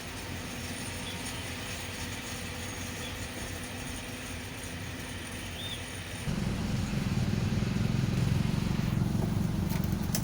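Diesel engine of a Hyundai hydraulic excavator running at work. About six seconds in it suddenly gets louder and heavier, as under hydraulic load.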